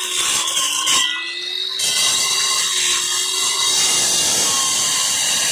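Electric power tool cutting: a steady motor whine with a bright hiss, easing off about a second in, then cutting steadily again.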